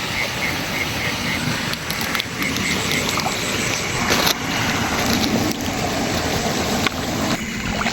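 Steady rushing water noise, with a quick, evenly repeating high chirp during the first few seconds and a few faint clicks.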